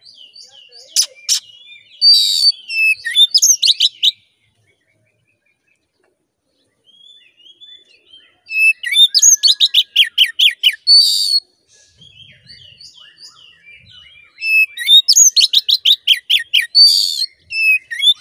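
Oriental magpie-robin singing in three loud bouts of rapid whistled phrases and fast descending trills, with a pause of about three seconds after the first bout. This is the bird's full, excited 'gacor' song, the kind kacer keepers play as a lure to rouse other magpie-robins.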